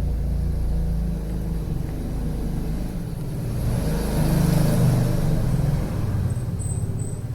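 A motor vehicle's engine running with a steady low rumble, swelling louder for a second or so about four seconds in, as if driving past.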